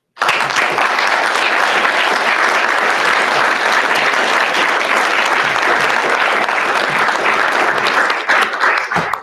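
Audience applauding, starting all at once and holding steady, then thinning out to scattered claps near the end.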